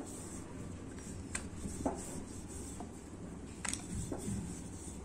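Wooden rolling pin rolling out a potato-stuffed paratha on a wooden board: a soft rubbing with a few light clicks and knocks scattered through.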